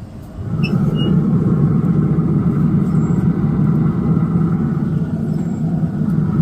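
Pit Boss pellet smoker's firepot burning hard under its combustion fan: a loud, steady rumble of flame that comes in suddenly about half a second in, a sign the freshly repaired smoker is lit and running on high.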